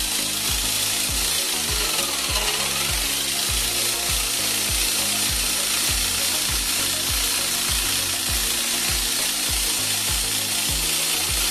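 Background music with a steady beat over the steady mechanical running of an 11 kg GSH 11E-type breaker's motor and gearing, on a test run after reassembly.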